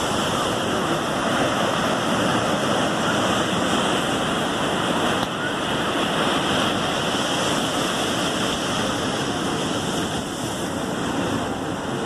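Ocean surf breaking on a sandy beach: a steady, even wash of noise.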